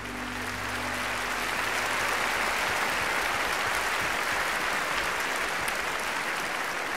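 A large audience applauding, a steady dense clapping that swells in the first second or two and then holds. Under its start, the last held chord of the backing music fades out.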